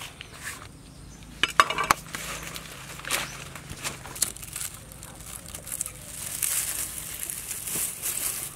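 A cleaver chopping green vegetables on a wooden board, with a few sharp, loud strikes between about one and a half and two seconds in. Later dry straw rustles and crackles as it is pushed into the fire of a clay stove.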